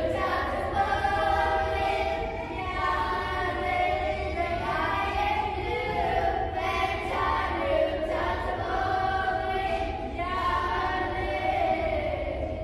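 A group of children singing together in unison, a chant-like song sung in phrases a couple of seconds long.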